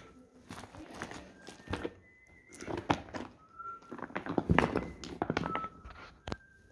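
Faint, echoing singing from deeper in a cave, a voice holding notes that change in pitch. Over it are irregular thumps and scuffs of someone moving over the rocky cave floor, the loudest about four and a half and six seconds in.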